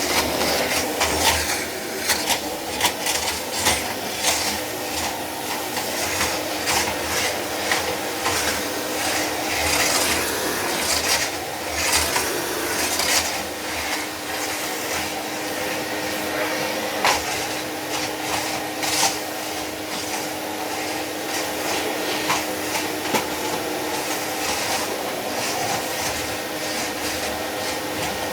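1979 Miele S 224 vacuum cleaner running with a steady motor hum, its brushed motor fitted with replacement carbon brushes, while frequent clicks and knocks come from it being handled.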